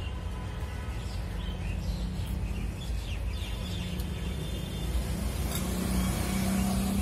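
A steady low background rumble with a few short, high chirps in the first half, under soft eating and noodle-slurping noises.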